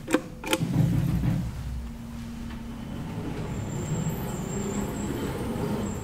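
Two clicks of the hall call button being pressed, then the 1980s KONE hydraulic elevator answering the call: a low rumble about a second in, followed by a steady mechanical hum with a faint high whine as the landing doors open.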